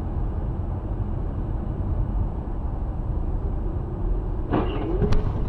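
Steady road and engine noise of a car driving on a highway, heard from inside the cabin, with a short louder sound whose pitch bends about four and a half seconds in.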